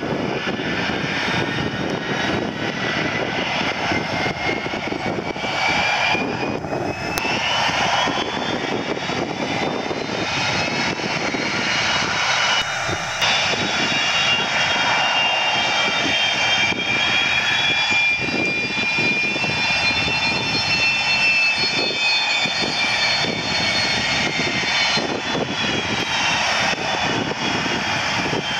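Boeing KC-135 Stratotanker's turbofan engines running as it taxis: a steady jet roar with a high whine that rises in pitch over the first ten seconds or so, then holds.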